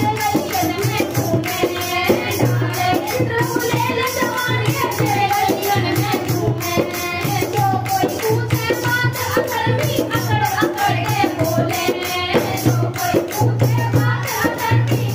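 Women's voices singing a Hindi devotional bhajan together, over a steady beat of hand claps and percussion.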